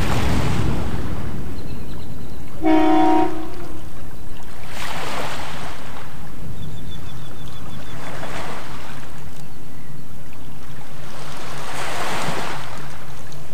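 A SpaceX Starship prototype exploding on its test stand: a heavy, continuous low rumble that swells and eases several times. A brief horn-like tone sounds about three seconds in.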